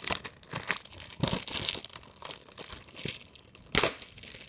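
Plastic wrapping on a DVD case being torn and crumpled by hand: irregular crinkling and tearing, with one sharp, loud crackle near the end.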